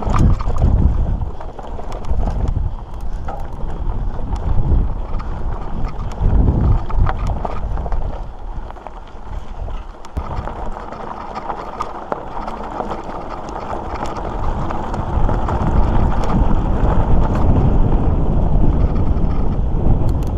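Wind buffeting the microphone over the rumble and rattle of a mountain bike rolling along a rough dirt trail, with scattered clicks and knocks from the bike over bumps. The noise eases about eight seconds in and builds again later.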